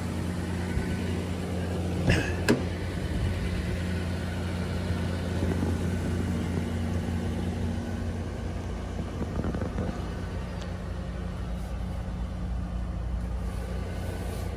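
A 1994 Toyota Land Cruiser 80 Series engine idling with a steady low hum, with two sharp clicks about two seconds in.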